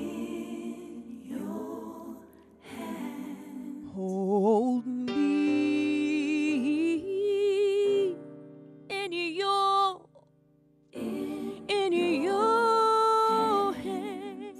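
Female gospel singer's voice through a handheld microphone, holding long notes with wide vibrato and quick melismatic runs, over a soft keyboard accompaniment. The voice breaks off briefly about ten seconds in, then comes back on a sustained, wavering note.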